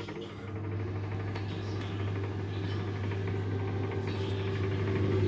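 Microwave oven running with an unusual steady low hum and buzz that slowly grows louder.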